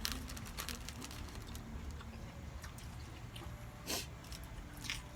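Eating at the table: scattered small clicks and crunches over a steady low background rumble, with a short louder noisy burst about four seconds in.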